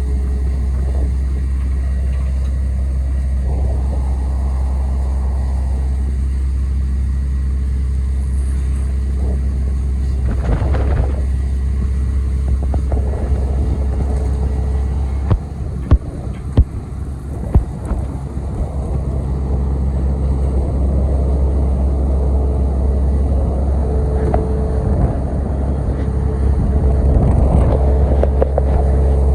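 Hitachi ZX870LCH-3 high-reach excavator's Isuzu diesel engine running with a steady deep drone. About halfway, a few sharp knocks, and the running grows louder in the second half.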